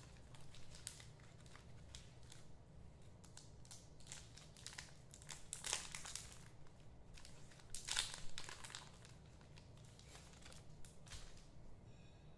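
Trading-card pack wrappers crinkling and tearing as card packs are opened and handled, with two louder crinkles, one about halfway through and one about two-thirds of the way through.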